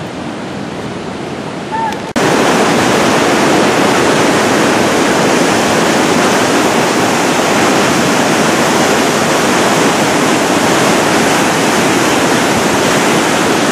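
Loud, steady rushing of a muddy flood torrent, a huaico mudflow, that starts suddenly about two seconds in after a quieter stretch of steady outdoor noise.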